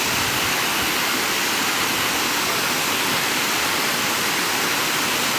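Sherman Falls, a waterfall, pouring in a steady, even rush of falling water.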